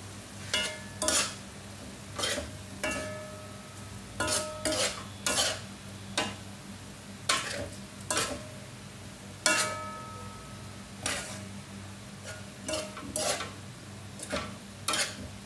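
A metal ladle scrapes and knocks against a non-stick wok while long beans are stir-fried in a little sauce, over a steady sizzle. The strokes come irregularly, about one a second, and several leave a short metallic ring.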